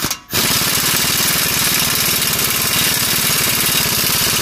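Impact wrench hammering continuously as it drives a socket on the outer tie rod end's ball-stud nut in the tightening direction. It starts about a quarter second in with a rapid, even run of strikes.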